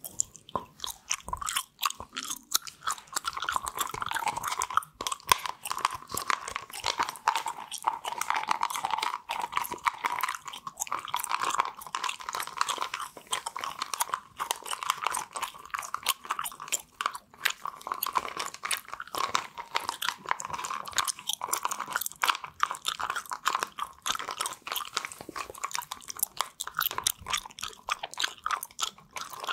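Chewing gum right up against a microphone, with a continuous run of quick, close mouth clicks and smacks.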